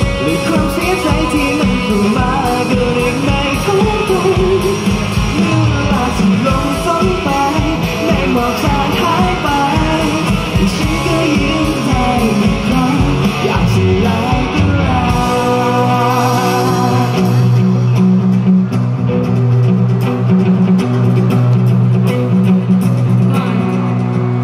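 Live band playing a Thai pop-rock song: a female singer over acoustic and electric guitars with a steady beat. About fifteen seconds in the beat stops and the music carries on as long held notes.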